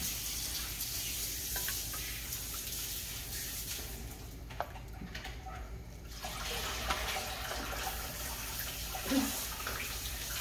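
Cooked lotus seeds and their liquid being ladled from a saucepan into a large pot of sweet soup: a soft splashing pour with a few light clicks, easing off briefly in the middle.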